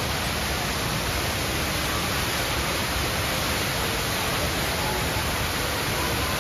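The Rain Vortex, a tall indoor waterfall falling from an opening in a glass dome roof into its pool: a steady, even rush of falling water.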